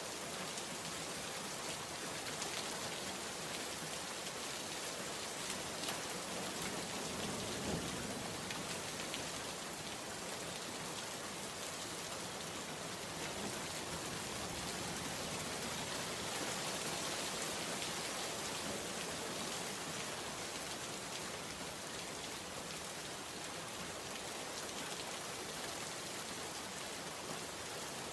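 Steady heavy rain with a dense patter of drops, and a brief low rumble about eight seconds in.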